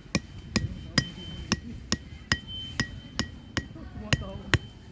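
Steady hammering, about two to three blows a second, each strike with a short metallic ring.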